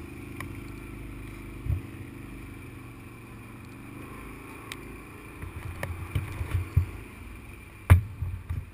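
Quad bike engine running steadily, its pitch rising a little about four seconds in, with irregular thumps from about five seconds on.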